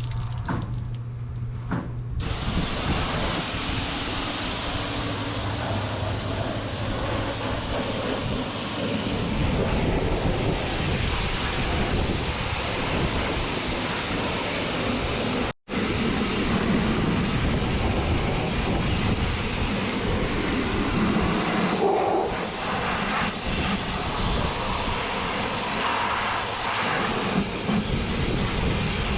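High-pressure washer jet spraying onto farm machinery: a steady, loud hiss that starts about two seconds in, after a low steady hum. The spray sound drops out for an instant about halfway.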